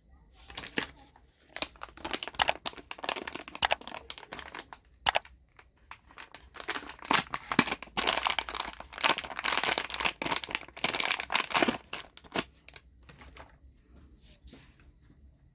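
Crinkling and rustling of something being handled, in dense irregular crackles that are loudest in the middle and die away a couple of seconds before the end.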